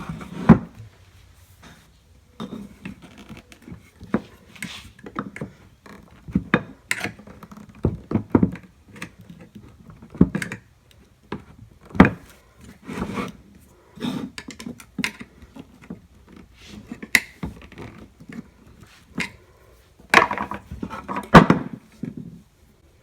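Screwdriver prying and scraping at a bent speaker frame: irregular clicks, scrapes and knocks, with a few sharper knocks about half a second in and near the end.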